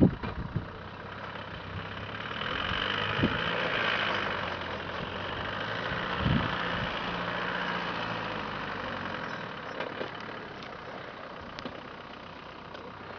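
Land Rover Discovery's engine working as it climbs a loose gravel slope, heard from a distance; the sound swells a couple of seconds in, holds for several seconds, then eases off.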